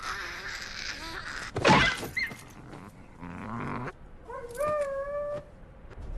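Cartoon soundtrack effects: a hiss of noise, then one loud crash, then a short pitched cry that slides up in pitch near the end.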